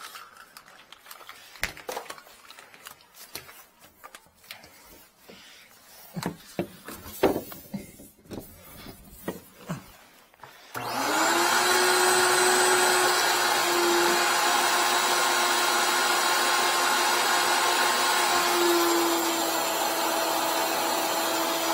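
Clicks and clatter of plastic hose fittings being handled. About eleven seconds in, a wet/dry canister vacuum switches on and runs steadily with a constant whine, sucking standing water out of a clogged sink drain line.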